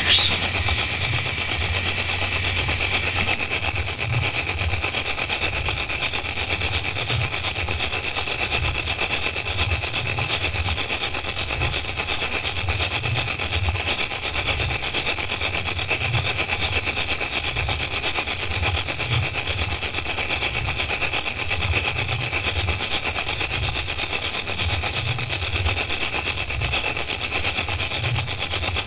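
A chorus of crickets chirping steadily in rapid pulsing trills, with an irregular low rumble underneath.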